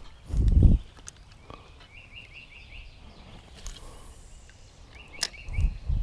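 A bird chirps in quick runs of several short notes. A loud, low, muffled bump comes about half a second in and again near the end, and a few sharp clicks fall in between.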